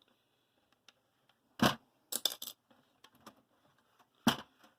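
Sharp metallic clinks and knocks of a tool working on the sheet-metal case of a Sky HD box: one knock about one and a half seconds in, a quick rattle of clicks half a second later, and another knock near the end.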